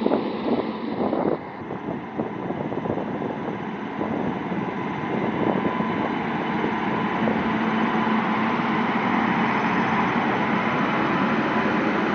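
Indian Railways WAP-7 three-phase electric locomotive pulling out and passing close. Its wheels and running gear make a steady rumble that builds over the first few seconds, with a steady whine from its motors and blowers held over it.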